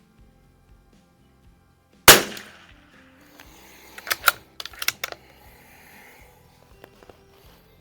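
A single .22 rimfire rifle shot from a CZ 452 bolt-action about two seconds in, followed a couple of seconds later by a quick series of sharp metallic clicks as the bolt is worked to eject the case and chamber the next round.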